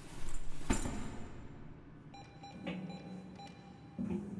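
A sharp click with handling rustle, then from about halfway a run of short electronic beeps from a machine's interface, which fit the machine taking a flash drive.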